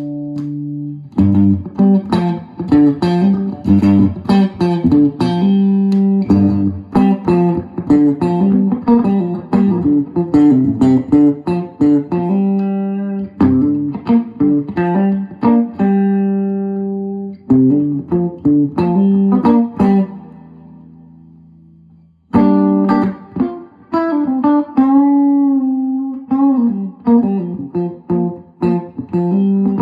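Solo guitar being played: a chord rings out and fades, then runs of picked single notes and chords follow. One note is left to die away about twenty seconds in, then playing resumes with bent, wavering notes.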